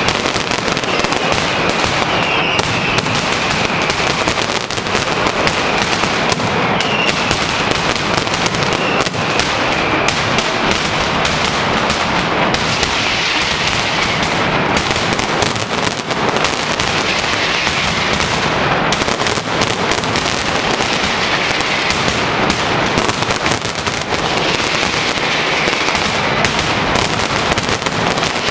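Mascletà: masclets (ground firecrackers) going off in a dense, unbroken crackle of rapid bangs, with a high whistling that wavers above it at times.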